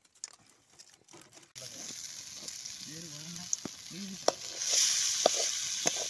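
Small fish deep-frying in oil in a wok, sizzling steadily from about a second and a half in and getting louder near the end. A perforated metal ladle clinks and scrapes against the pan a few times.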